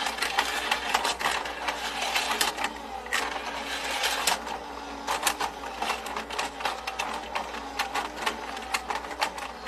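Battery-powered penguin slide toy running: a steady rattling clatter of plastic clicks as its moving stair lift carries the little penguins up and they run down the track.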